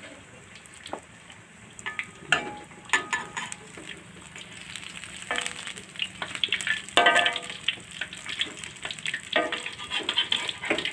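Tempeh slices sizzling in hot oil in a wok, with a metal slotted spatula scraping and clinking against the pan at irregular moments.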